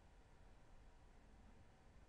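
Near silence: a faint steady background hiss.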